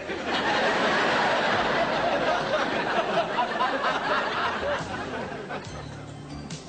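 Studio audience laughing: a broad swell of laughter that sets in at once, holds for a few seconds and slowly dies away.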